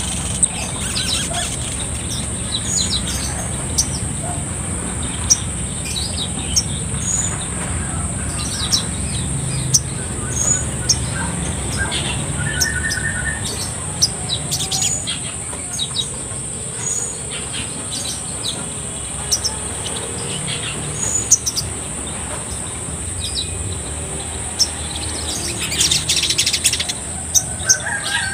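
Caged sogon (brown-throated sunbird) calling in short, high chirps scattered throughout, with a brief trill near the middle and a busier run of chirps near the end, over a steady high-pitched hiss.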